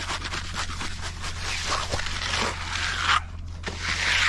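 Hand float scraping and rubbing in repeated strokes across freshly poured wet concrete, floating the surface of the slab, over a steady low hum.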